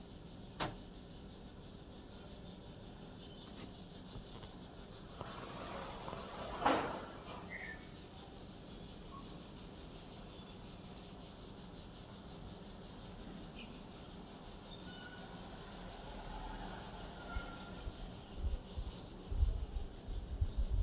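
Pressure cooker hissing steadily in quick even pulses as it vents steam, with one brief louder burst about seven seconds in. Faint short chirps from Indian silverbills come and go.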